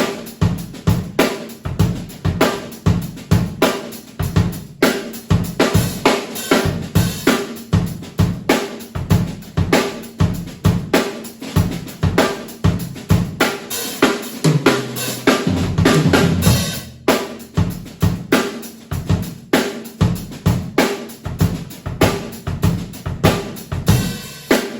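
Acoustic drum kit being played in a steady groove of bass drum, snare, hi-hat and cymbals. A little past halfway the playing thickens into a longer, fuller passage, then stops for a moment before the groove resumes.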